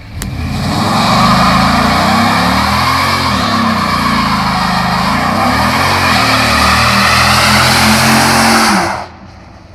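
Dodge Ram SRT-10's V10 engine held at high revs through a burnout, the rear tyres spinning and squealing against the tarmac with a loud hiss. The engine note sags and climbs again a couple of times, then drops away suddenly about a second before the end.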